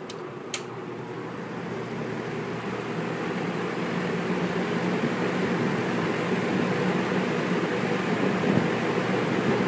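Kenmore Roll-O-Matic box fan with a 1/6 horsepower Westinghouse motor: two clicks of the speed switch, then the rush of air from the blades builds over about four seconds as the fan spins up to high speed, and holds steady.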